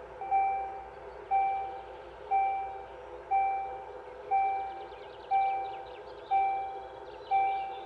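Level-crossing warning bell ringing about once a second, each stroke sharp and dying away: the signal that the crossing is closing for an approaching train, with the barriers about to come down.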